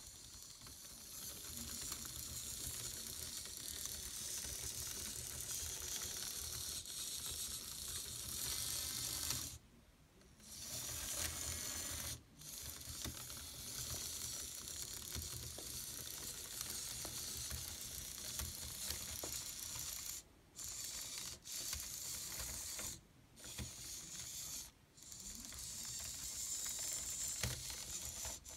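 Miniature tracked robot driving on plastic link tracks: its small geared micro servo drive motors whir and the tracks rattle. It stops briefly a few times, about a third of the way in and several times in the second half, then starts again.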